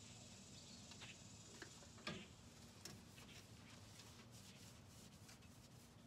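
Near silence with a few faint clicks and a soft rub about two seconds in, from a sponge wiping bonding primer onto a mini fridge's metal side.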